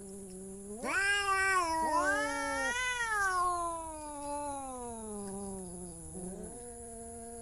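Domestic cat yowling in long, drawn-out caterwauls. The call swells about a second in, a second yowl overlaps it briefly, and the pitch then sinks slowly before lifting again near the end.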